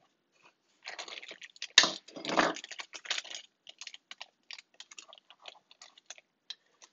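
A small plastic zip bag of suction cups crinkling as it is handled. Dense crackling for a couple of seconds, with one sharp louder crackle, then scattered light crinkles and clicks.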